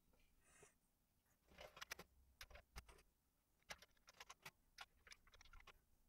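Faint, irregular clicking of Commodore 64 keys being pressed one after another along the rows, a keyboard test.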